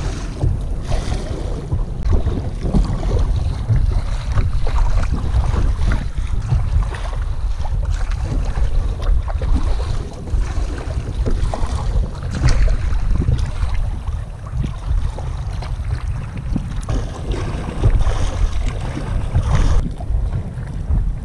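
Strong wind buffeting the microphone, heavy and rumbling, over water splashing and slapping against the kayak's bow in choppy sea, in uneven surges.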